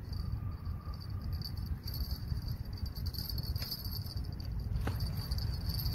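Steady high trilling of insects over a low rumble on the microphone, with a couple of faint clicks about three and a half and five seconds in.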